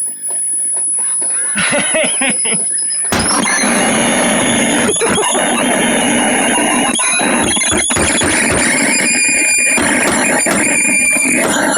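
Old rain-damaged stereo putting out loud, distorted noise with high, wavering squeals through its speaker. The noise cuts in suddenly about three seconds in and keeps going; the owner suspects a short circuit.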